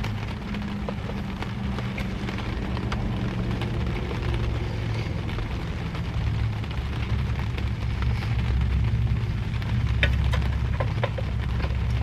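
Rain falling on a car, heard from inside the cabin: a steady low rumble with scattered pattering drops, and a few sharper clicks about ten seconds in.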